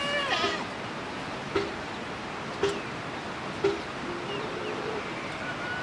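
Chickens clucking: three short clucks about a second apart over a steady rushing background noise, with a brief high animal call right at the start.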